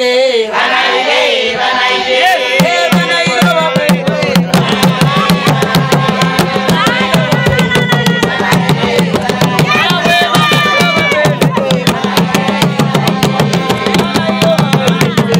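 Traditional hand drums playing a fast, driving dance beat, coming in about three seconds in, with a group of voices singing over them.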